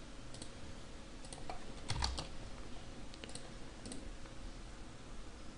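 A few scattered clicks of a computer keyboard and mouse, a small cluster about two seconds in being the loudest, over faint room noise.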